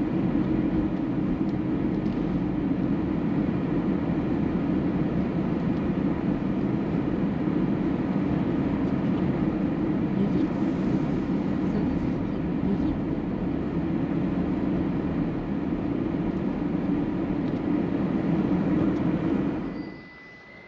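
Steady running rumble of a moving vehicle, even throughout, dropping away near the end.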